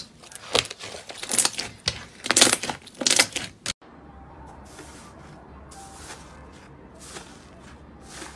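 Thick pink slime being pressed and stretched by hands, crackling and popping in loud, irregular bursts. About three-quarters of the way through it gives way to quieter, soft rustling as a hand presses into a tub of grainy, sand-like slime over a low steady hum.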